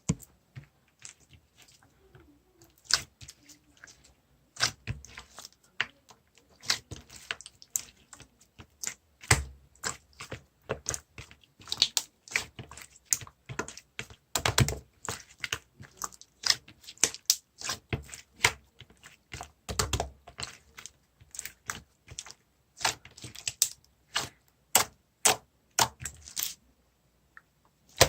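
Cloudy clear slime being squeezed and pressed by hand, giving a dense, irregular run of sharp clicks and pops with a few heavier thuds.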